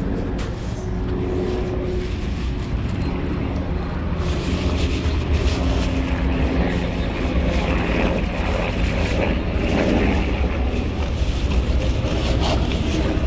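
Steady low rumble of street traffic, growing slightly louder about four seconds in.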